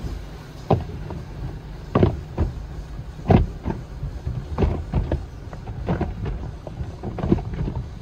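Automatic car wash heard from inside the car: soft-cloth wash strips slapping and sweeping across the windshield and body in irregular thumps, over a steady low rumble of the wash machinery and water.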